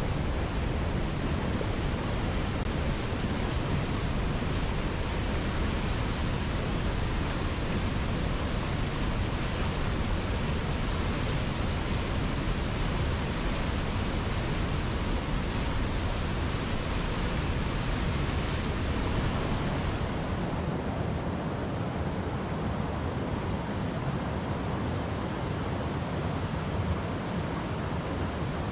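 Mountain waterfall: falling water rushing steadily. About two-thirds of the way through the sound turns a little duller, with less deep rumble and less hiss.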